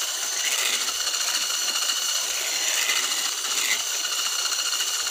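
Electric hand mixer running at a steady speed with a high motor whine, its single whisk beater churning cake batter in a plastic bowl.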